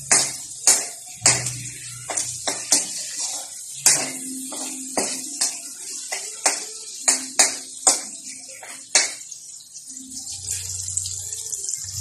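Metal ladle clinking and scraping against a wok as chopped garlic and onions are stirred, with the oil sizzling throughout. The clinking stops about nine seconds in while the sizzling goes on.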